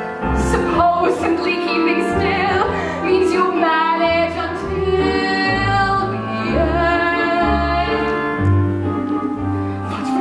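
A woman singing a musical-theatre song over instrumental accompaniment with sustained low bass notes.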